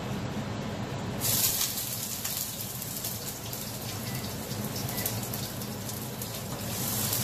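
Food frying in hot oil in a wok: a crackling sizzle that starts suddenly about a second in and keeps going, over a low steady hum.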